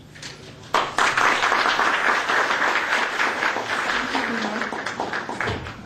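Audience applauding, starting abruptly about a second in and gradually dying down near the end.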